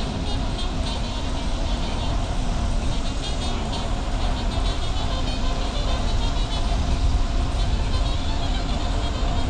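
Steady wind rush and rumble on the microphone of a bicycle riding at speed on a paved trail, with the tyres humming on the asphalt.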